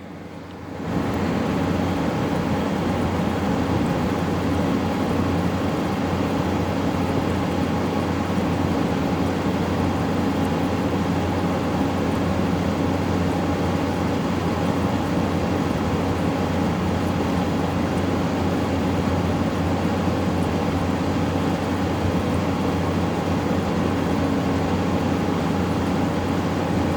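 LG 12,000 BTU window air conditioner running, its compressor and fan giving a steady hum with a low drone. The compressor is running normally, the way it should.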